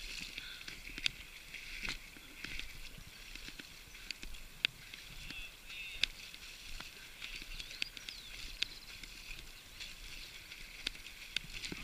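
Bicycle wheels churning through shallow lake water, splashing, with scattered sharp clicks over a steady high hiss.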